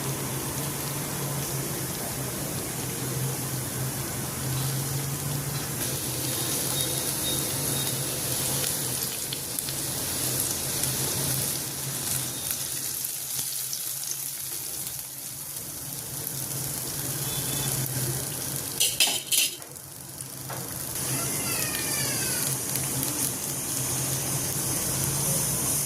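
Chicken pieces for Bihari boti sizzling in hot oil as a steady hiss over a low steady hum, with a short loud clatter about three quarters of the way through.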